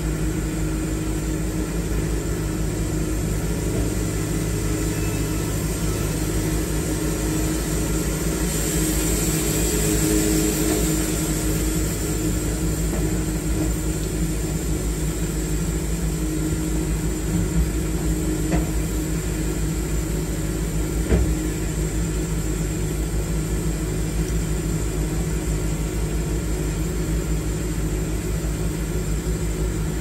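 Wood-Mizer LT70 sawmill's engine running steadily. A hiss swells about a third of the way in, and a few short sharp knocks come past the middle.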